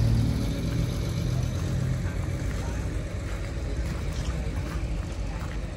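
A vehicle engine's low steady rumble that fades over the first two seconds or so, under a steady rushing noise.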